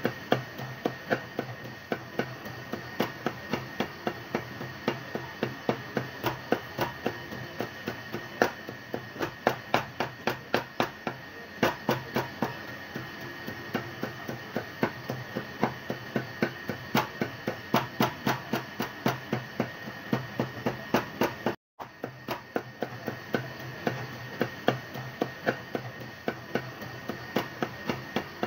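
A heavy butcher's knife chopping beef into mince by hand on a round wooden block: steady, rapid chops, about three a second, over a steady background hum. The sound cuts out for an instant about two-thirds of the way through.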